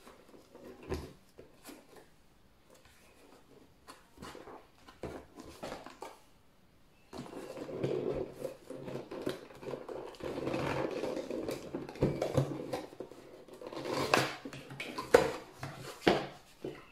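Hands handling and prying at a cardboard box: scattered light taps and clicks of fingers on the cardboard, then from about seven seconds in a denser scraping and rustling as the box's end flaps are worked open, with a few sharper knocks near the end.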